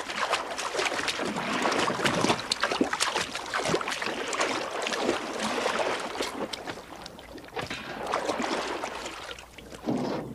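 Water splashing and sloshing in irregular bursts as a person wades through a shallow river.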